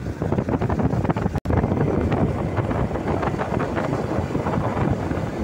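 Wind buffeting the microphone: a steady, rumbling rush that cuts out for an instant about a second and a half in.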